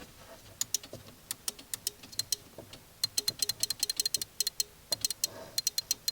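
Rapid, irregular sharp clicking in quick runs, several a second, from the Honda Forza 125's electrics down by the battery as the starter is tried: the clicking that goes with its no-crank, no-start fault.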